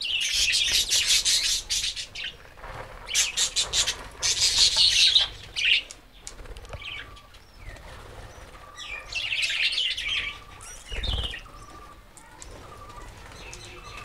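Budgerigars chirping and chattering, with wing flutters, while boiled wheat grains are poured from a steel bowl and raked by hand into a wooden feeder tray, giving bursts of rustling grain. One dull thump comes late on.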